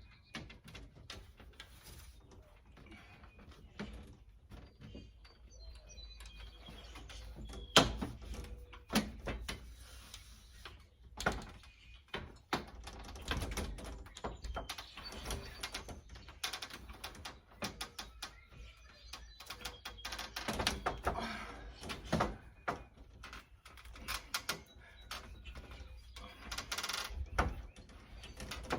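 Handling noises from a flexible screen being bent and worked into a storm door's track: irregular clicks, knocks and rustling, with one sharp knock about eight seconds in.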